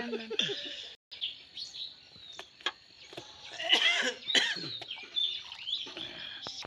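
Birds calling in the open, with a cluster of short calls that swoop up and down in pitch about halfway through, and a few sharp clicks.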